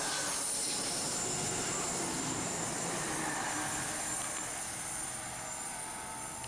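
A train running on the rails: a steady noise of wheels on rail that slowly fades.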